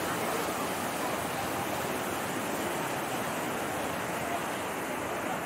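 Rushing floodwater: a fast torrent of muddy water running as a steady, unbroken rush.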